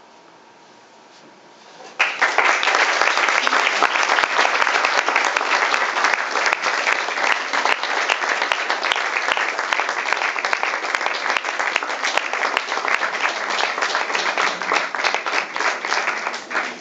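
Audience applauding, starting suddenly about two seconds in after a quiet moment, then tapering off near the end.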